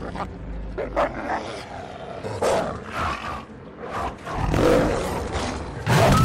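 Film sound effects of a wolf pack snarling and a tiger growling: a string of short snarls and growls that grows louder, with the loudest burst near the end as the animals clash.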